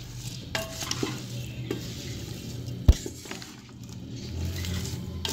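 Wooden spatula stirring chopped carrots, potatoes and onions in a metal pressure cooker, with scattered knocks against the pot and one sharper knock about three seconds in.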